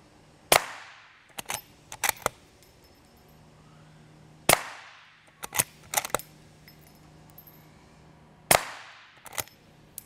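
Three suppressed shots from a Mossberg Patriot bolt-action rifle in .450 Bushmaster with a Griffin Bushwhacker 46 suppressor, firing subsonic 395-grain loads, about four seconds apart. Each shot has a short decaying tail. Between shots comes a quick run of metallic clicks as the bolt is worked to chamber the next round.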